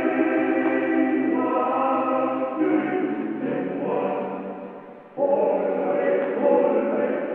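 Background music: choral voices chanting sustained chords, with a dip and a new loud chord entering about five seconds in.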